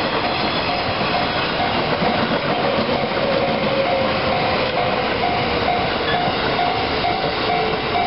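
A Tokaido Line electric train rolls steadily past over a level crossing, with wheel and track noise and clickety-clack. Over it the crossing's warning bell rings steadily, about twice a second, meaning the barriers are down for the train.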